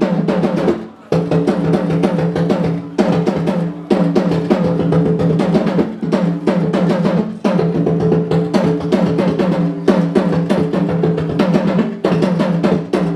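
Apinti talking drum beaten in quick runs of strokes with brief breaks every couple of seconds, sounding a greeting in drum language.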